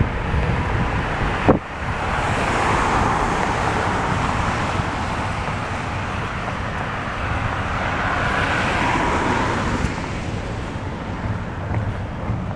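Road traffic passing on a wet highway, tyres hissing on the wet pavement in two swells as cars go by, over a steady rumble of wind on the microphone. A brief sharp knock comes about a second and a half in.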